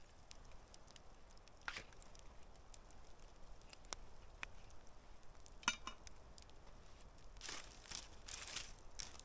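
Faint clicks and scrapes of metal tongs handling steak on a grill grate hung over a campfire, with a few sharp clicks spaced through and a short run of scraping near the end.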